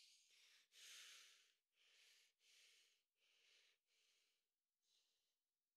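A man's faint, rapid breathing: about seven quick breaths in and out, fading toward the end.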